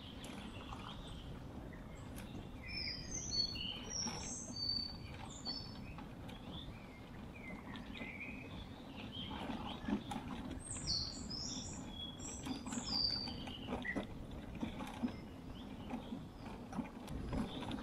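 Small birds chirping and twittering in short calls, in two spells: a few seconds in, and again past the middle. Under them runs a steady low rumble of tyres rolling over a gravel track.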